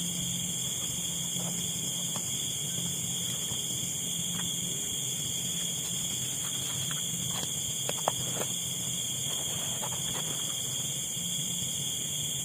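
Night insect chorus: steady high-pitched trilling in several pitch bands, over a low pulsing hum. A few light clicks fall around the middle, the sharpest about eight seconds in.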